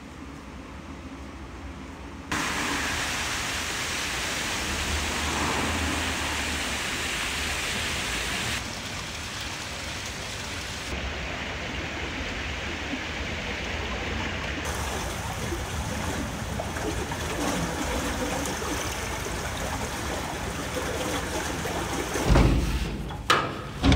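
Running water of a stream, a steady rushing whose level and tone jump abruptly a few times, with a few loud low thumps near the end.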